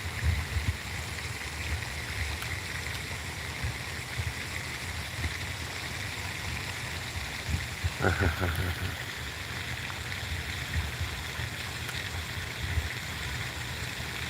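Steady rushing outdoor noise with uneven low rumbles, and a short vocal sound about eight seconds in.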